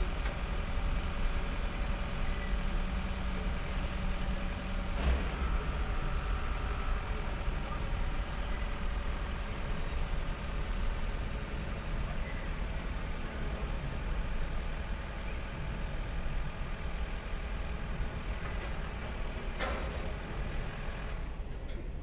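Diesel-electric locomotives of a long multi-unit consist rumbling steadily as it rolls slowly past, with a couple of sharp knocks.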